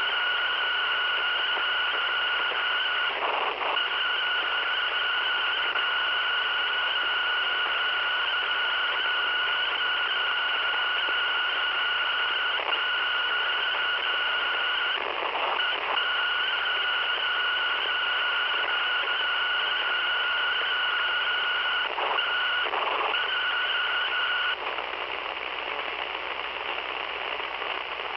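Radio with a faulty, randomly drifting tuner and a damaged capacitor giving off a steady high whistle over static hiss. The whistle breaks off briefly a few times and stops about 24 seconds in, leaving only the static.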